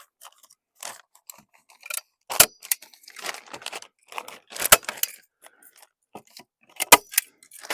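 Hand staple gun firing three times, about two seconds apart, driving staples through a plastic weed sheet; the gun is working again after a jam. Rustling and scraping between the shots.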